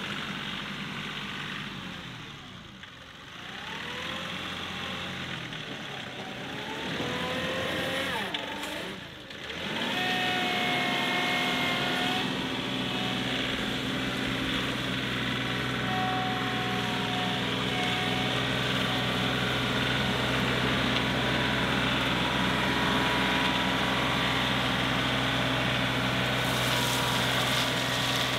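John Deere 2038R compact tractor's three-cylinder diesel engine running, its pitch rising and falling as it manoeuvres. About ten seconds in it runs louder and steady as it drives up with a loaded bucket of rock. Near the end, gravel starts pouring out of the loader bucket.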